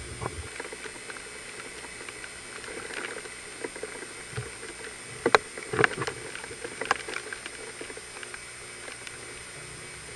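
Hurricane wind and rain making a steady noise, with a few sharp knocks about five to seven seconds in.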